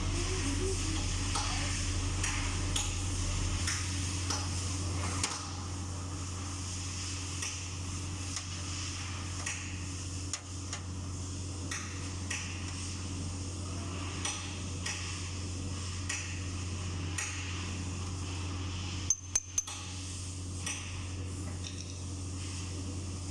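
Scattered metallic clinks and taps of hand tools and steel parts being handled while a skid loader's hydraulic travel motor is taken apart, with three sharp knocks in quick succession late on, over a steady low hum.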